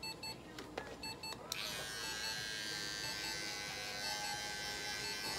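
Small electric pet clipper switched on about a second and a half in, then buzzing steadily as it trims the fur between a cat's paw pads.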